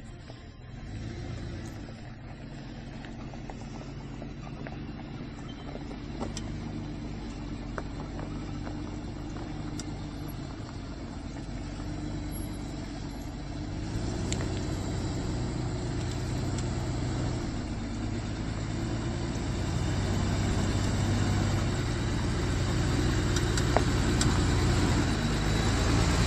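Toyota FJ62 Land Cruiser's 3F-E inline-six petrol engine running at low speed as the truck crawls up a gravel trail, growing steadily louder as it comes close.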